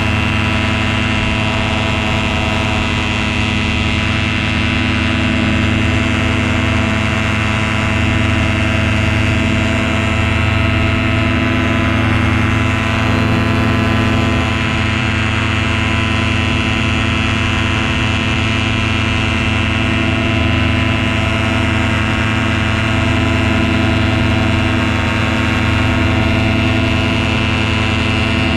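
Tandem paramotor's engine and caged propeller running steadily in flight at an even throttle, a dense hum of many steady tones with no change in pitch.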